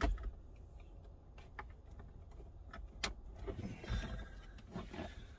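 Scattered clicks and light knocks of wiring connectors and plastic dash parts being handled, with a sharper knock right at the start and another click about three seconds in.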